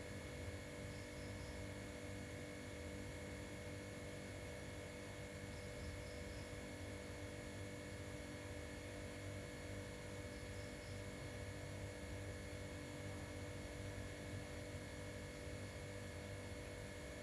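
Steady electrical hum made of several fixed tones. Faint, short high chirps come in groups of three or four, about every five seconds.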